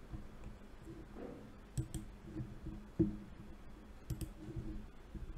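A handful of sharp computer mouse clicks, some in quick pairs, as the user works through an application on screen.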